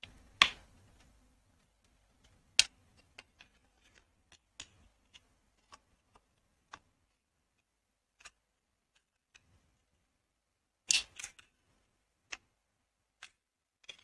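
Screwdriver prying at the brake shoes and return springs of a Honda CD 70 drum brake plate: scattered sharp metal clicks, the loudest about half a second in and near two and a half seconds, with a quick cluster near eleven seconds. The shoes are stuck from long neglect and come off with difficulty.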